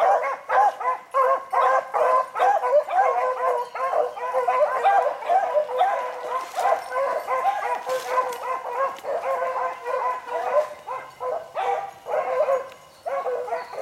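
Several beagles baying without a break as they run a rabbit's trail, their voices overlapping; the cry thins briefly near the end.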